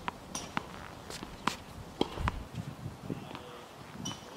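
Tennis ball struck by rackets and bouncing on a hard court, a series of sharp, irregularly spaced knocks, with footsteps on the court.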